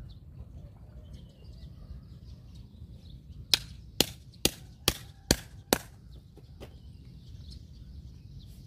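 A cleaver chopping through a large striped catfish: six sharp blows about two a second, starting about three and a half seconds in, then one fainter blow. Faint bird chirps and a low outdoor rumble behind.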